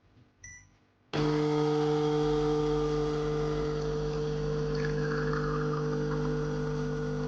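Espresso machine's pump running steadily as a shot is pulled. It is a loud, even hum that switches on suddenly about a second in.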